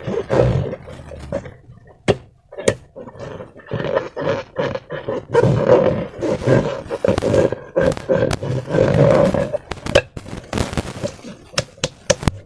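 Slime squelching and a rubber balloon squeaking as a slime-filled balloon is squeezed and worked by hand, in irregular bursts. Several sharp clicks break in, a few close together near the end.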